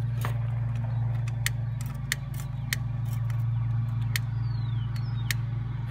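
A long-neck utility lighter sparked again and again inside a bee smoker's pine shavings to relight the tinder: several sharp clicks, about a second apart, over a steady low mechanical hum.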